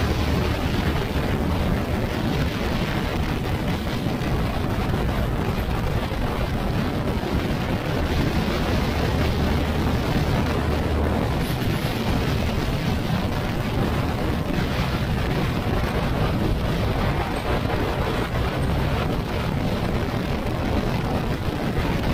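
Steady wind noise on the microphone mixed with the engine and road noise of a Yamaha NMAX scooter with an aftermarket RS8 CVT, under way at speed.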